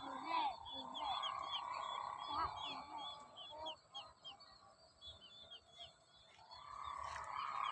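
A kite's sendaren (bamboo hummer bow) droning faintly, its pitch sliding up and down with the wind. The drone drops away in the middle and returns near the end. Over it run repeated short, high, falling bird chirps.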